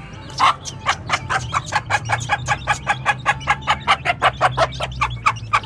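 Hen clucking in a fast, even run of short clucks, about six a second.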